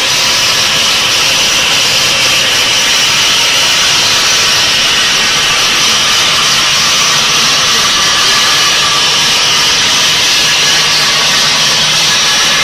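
Mushtaba bridge saw's large circular blade cutting through a row of granite blocks: a loud, steady, high-pitched grinding hiss with a faint hum beneath.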